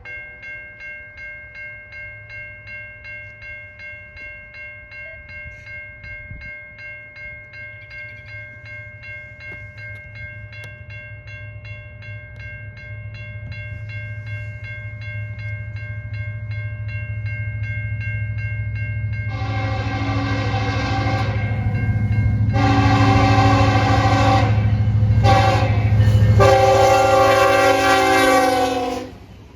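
A bell rings steadily, about twice a second, while the low rumble of an approaching diesel freight train builds. From about two-thirds of the way in, the locomotive's multi-tone air horn sounds the grade-crossing signal, long, long, short, long, and cuts off just before the end.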